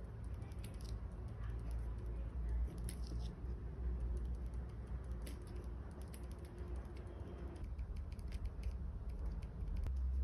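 A pen writing on paper: soft scratches and small ticks as short strokes are made. Under it runs a steady low rumble, which the writer puts down to construction work outside.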